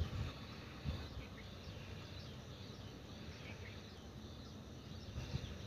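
Faint rural outdoor ambience: scattered small bird chirps over a low rumble, with a couple of soft low thumps near the start.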